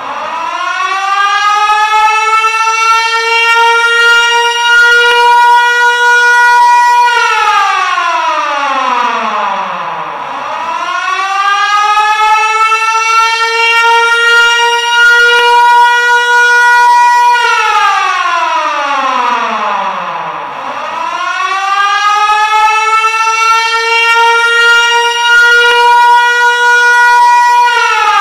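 Civil defence siren sounding a warning wail. The pitch winds up over about two seconds, holds steady for about five, then winds down, and the cycle repeats about every ten seconds.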